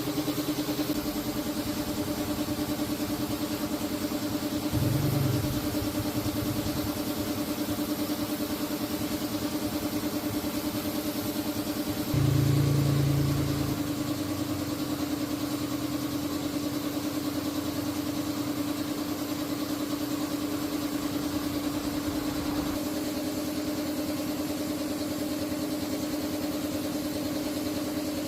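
An engine idling steadily, swelling louder briefly twice: about five seconds in, and again for a second or two around twelve seconds in.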